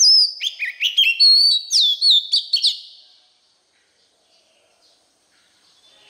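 Oriental magpie-robin singing: one fast phrase of about three seconds of clear whistled notes, quick up-and-down slurs and falling whistles, which then stops.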